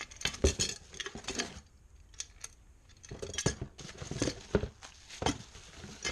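Hard parts handled during unpacking: an irregular run of clicks, knocks and light clatter in two clusters.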